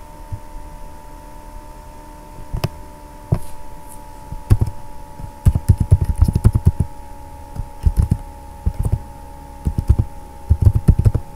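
Computer keyboard typing in short bursts of rapid keystrokes, after a couple of single clicks, over a faint steady hum.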